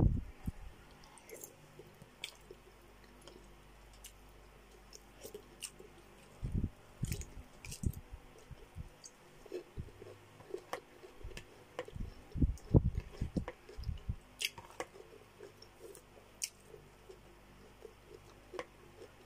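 Close-miked chewing of boiled chicken and cabbage: wet mouth sounds and sharp little clicks that come and go, busiest in the middle stretch.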